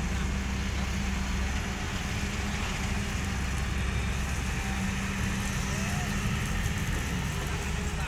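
Hyundai 220LC-9S excavator's diesel engine running steadily under hydraulic load as the machine swings a loaded bucket of gravel.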